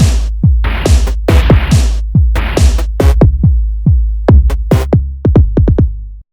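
Electronic dance music: drum-machine hits with falling-pitch tails over a steady deep bass. The hits come faster in a roll near the end, then the music cuts off suddenly.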